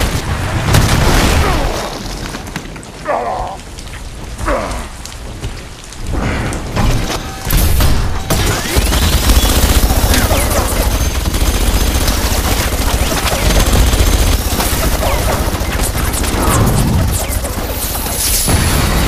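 Heavy booms and crashes, then from about eight seconds in a long, unbroken barrage of rapid automatic gunfire from mounted machine guns.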